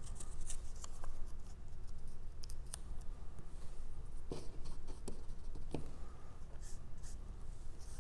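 Light handling sounds of collage work: paper rustling and a few soft knocks about four to six seconds in, as a foam brush is dabbed in a small plastic cup of watered-down school glue, over a steady low hum.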